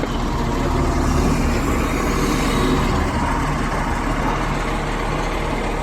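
A heavy vehicle's engine running steadily at a constant level, with one sharp click near the end.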